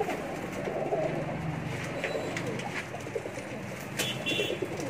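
Several domestic high flyer pigeons cooing together in overlapping low, wavering coos, with a few light knocks and a short high chirp near the end.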